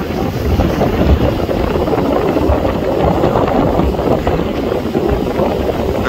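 Wind buffeting the microphone in uneven low gusts over the steady wash of surf breaking on a sandy shore.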